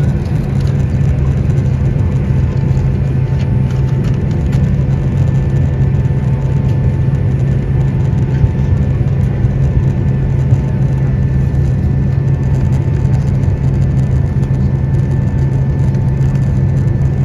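Boeing 767-300ER taxiing, its General Electric CF6 turbofans running at taxi power: a steady low hum over an even rushing noise, with a few faint steady higher tones.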